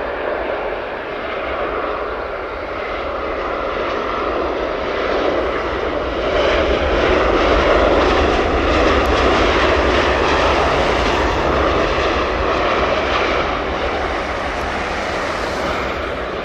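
Airbus A320 jet engines as the airliner touches down and rolls out along the runway. The noise grows louder about six seconds in, stays loud for several seconds, then eases off near the end.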